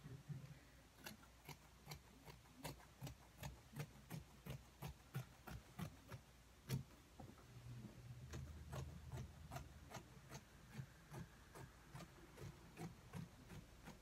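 Scissors cutting through pillow fabric: a steady run of faint snips, about two or three a second.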